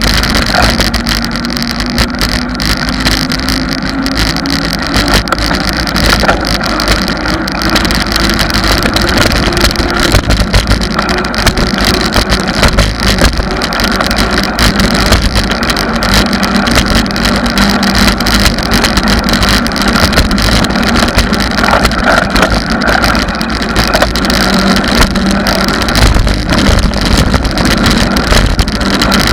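Wind buffeting the microphone of a camera on a moving bicycle, over the rumble of tyres on asphalt. A low hum slowly rises in pitch over the first ten seconds or so, then levels off.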